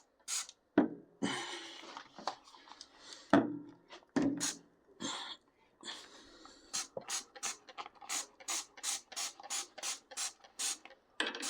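Dawn Powerwash trigger spray bottle being pumped over and over, each squeeze a short spray hiss. In the second half it settles into a quick run of about three squeezes a second, with a few knocks of handling along the way.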